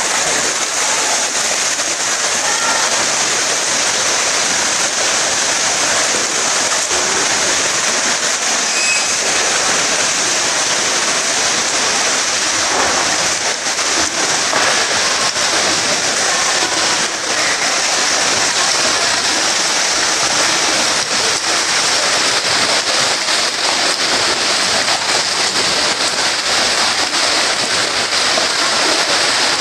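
Steady splashing and rushing water in an indoor swimming pool, with a swimmer kicking along the lane in fins.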